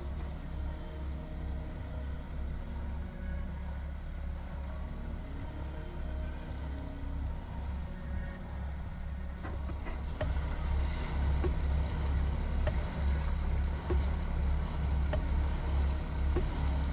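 Motor boat's engine running with a steady, evenly pulsing low throb, with more hiss of water and wind coming in from about ten seconds in.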